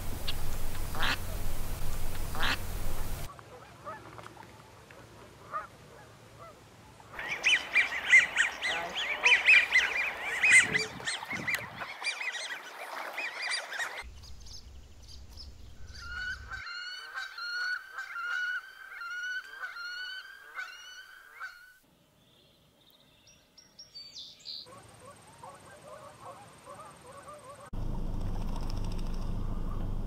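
Waterfowl calling in a run of short field recordings: a loud, dense flock chorus, then one bird's call repeated about twice a second, with stretches of wind-like outdoor noise between.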